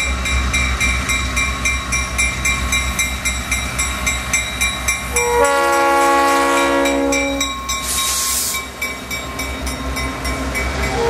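South Shore Freight EMD GP38-2 diesel locomotives passing close by with a freight train: engines rumbling and wheels clicking steadily over the rail joints. The multi-chime air horn blows one chord for about two seconds, five seconds in, and starts again at the very end. A brief hiss comes about eight seconds in.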